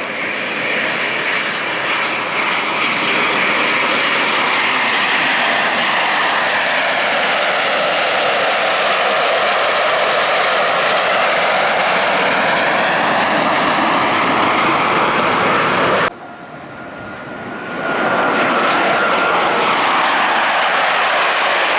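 Blue Angels F/A-18 Super Hornet jets flying past, a loud steady jet roar with a high whine that falls in pitch as they go by. The roar cuts off suddenly about sixteen seconds in and builds back up over the next second and a half.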